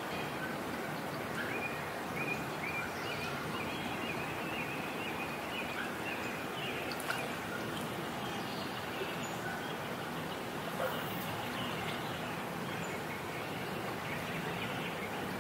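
Steady rush of flowing creek water, with faint bird chirps in the first half.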